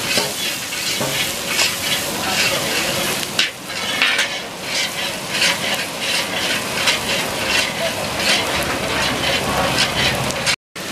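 Rice grains frying in a large black iron kadai, a continuous sizzle with a flat metal spatula scraping and stirring through them in repeated strokes, about two a second. The sound cuts out for a moment near the end.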